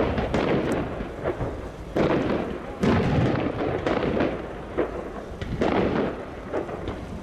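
Aerial fireworks bursting overhead: several deep booms, the strongest about two and three seconds in, with crackling between them.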